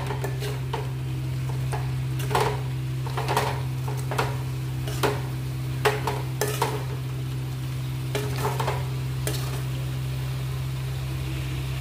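Fried soya chaap being stirred in thick masala in a metal kadhai: the utensil scrapes and knocks against the pan about once a second, over a faint sizzle and a steady low hum.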